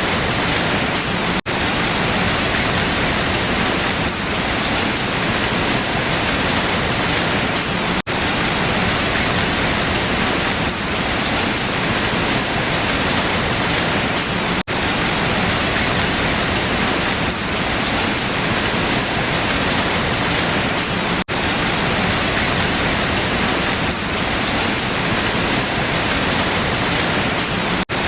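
Steady rain falling on leaves, a dense even patter, broken by a momentary dip in level about every six to seven seconds.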